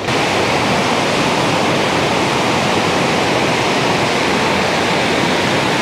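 Loud, steady rush of falling or flowing water, unbroken throughout.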